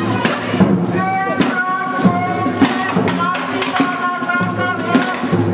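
Music with a steady beat and held melody notes.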